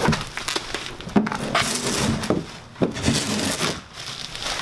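Bubble wrap crinkling and rustling against a cardboard box as a large wrapped part is lifted out, with two sharp cracks, about a second in and near the three-second mark.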